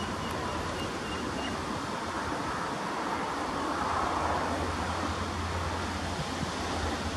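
Distant freight train of container wagons rolling past, a steady low rumble that swells slightly about four seconds in, mixed with wind noise.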